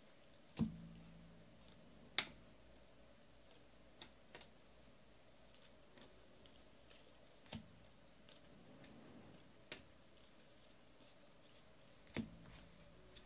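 Baseball trading cards being sorted by hand and dealt onto piles on a table. About seven separate light clicks and taps of card on card and card on tabletop stand over quiet room tone.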